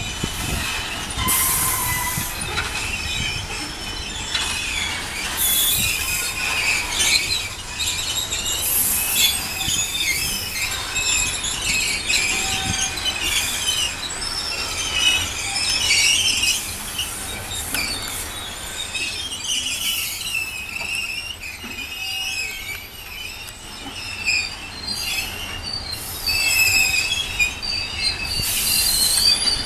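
Freight train of covered hopper wagons rolling past, its steel wheels squealing against the rails in shifting high-pitched tones over a low rolling rumble, with louder screeches every few seconds.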